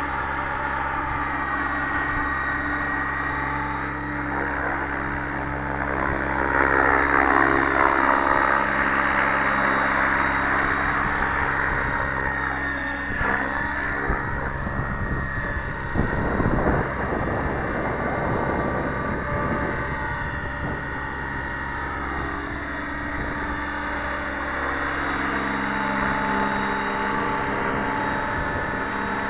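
Align T-Rex 700 radio-controlled helicopter in flight, its main rotor and drive running with a steady drone. It grows louder from about six to ten seconds in, and its pitch slides up and down around the middle as it passes by.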